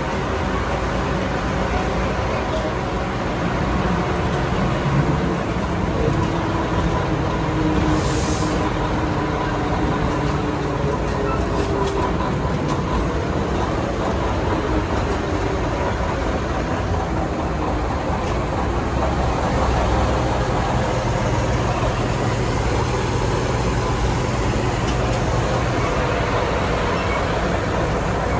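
Diesel engine of a small General Electric switcher locomotive running steadily just ahead, mixed with the rumble of the train rolling along the track.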